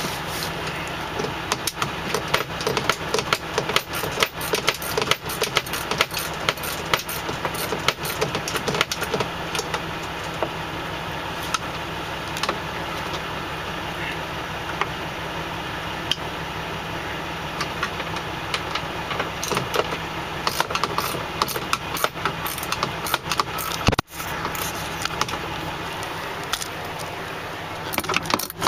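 Frequent clattering and rattling of small hard objects being handled, over a steady low mechanical hum. The sound cuts out briefly about two thirds of the way in.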